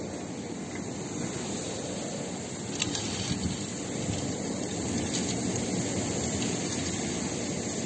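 Cyclone storm wind and rain, a steady low rushing noise with a few faint ticks.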